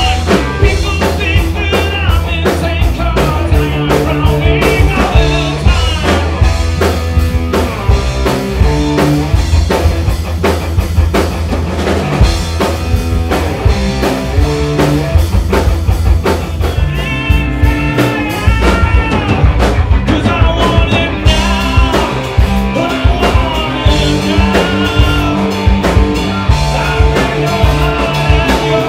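Live rock band playing loud: drum kit, electric guitar and bass, with a male lead singer on vocals.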